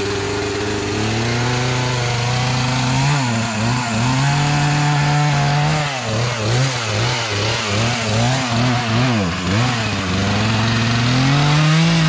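Gas chainsaw cutting limbs and small trees: the engine revs up and holds high, then its pitch drops and recovers over and over in the middle as the chain bites into the wood, and it revs high again near the end.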